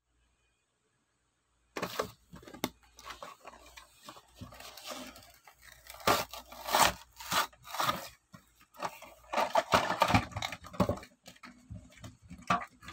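A toy's blister pack being torn open by hand, starting about two seconds in: the cardboard backing card ripping and the clear plastic blister crackling and crunching in a series of irregular rips and crinkles.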